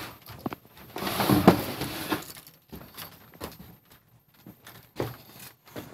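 Rustling and knocking from a camera being handled while someone clambers down a wooden play fort: a loud stretch of rustling about a second in, then a few scattered knocks and clicks.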